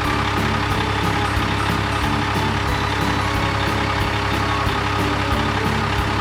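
Cartoon truck engine sound effect, running steadily at a constant pitch, over background music.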